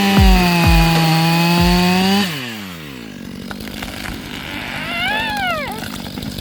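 Stihl MS500i chainsaw running at full throttle in a felling cut, then the throttle released about two seconds in so the engine note falls away. About five seconds in, a brief squeal rises and falls in pitch.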